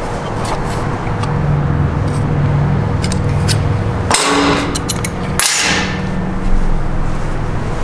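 Copper strap being worked into a bend with hand tools: light metal taps and clinks, with two short scraping rushes about halfway through, over a steady low hum.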